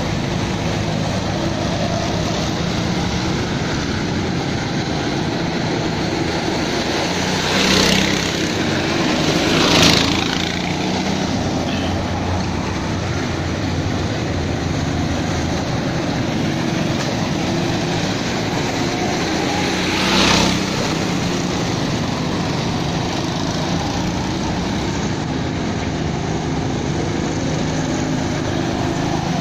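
Small go-kart engines running as karts lap the track: a steady mechanical drone that swells briefly three times, about 8, 10 and 20 seconds in.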